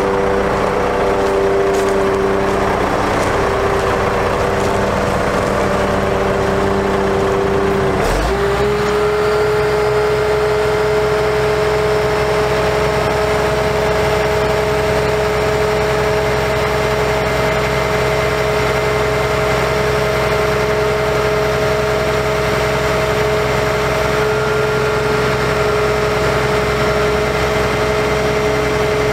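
Cummins ISC diesel engine of a bucket truck running with the hydraulics engaged, giving a steady whine. About eight seconds in, the whine breaks briefly and picks up again slightly higher, then holds steady as the Hi-Ranger boom is raised.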